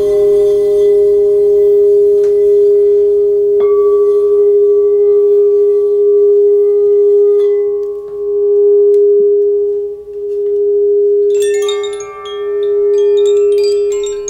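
A singing bowl rings with one strong sustained tone that swells and fades about every two seconds, and a light strike about four seconds in adds higher overtones. About eleven seconds in, hanging wooden tube chimes start ringing over it with a cluster of bright, quickly changing notes.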